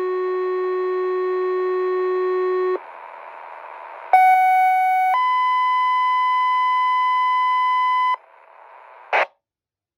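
Two-tone sequential paging tones (Motorola Quik-Call II format, Zetron Model 25 encoder) over a GMRS radio channel. A steady low tone ends about three seconds in, followed by a moment of radio hiss. A second page follows: a one-second tone steps up to a higher tone held for about three seconds, and a short burst of static near the end marks the transmitter unkeying.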